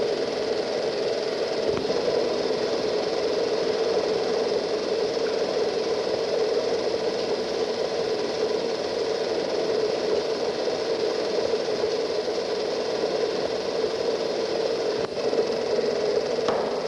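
1913 Allis-Chalmers vertical triple-expansion steam pumping engine running steadily, a continuous mechanical din from its moving rods and valve gear.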